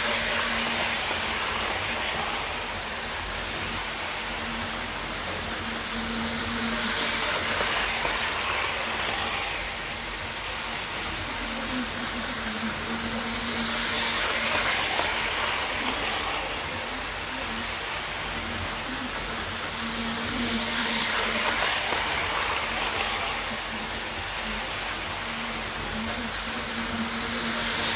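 Hornby Class 47 model locomotive and five coaches running on model railway track: a steady motor hum with the rattle of wheels on rail, swelling each time the train passes close, about every seven seconds.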